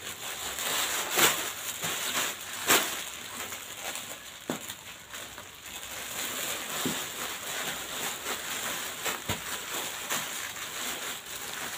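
Rustling handling noise, a steady hiss broken by several sharp clicks, as garments are handled and laid out.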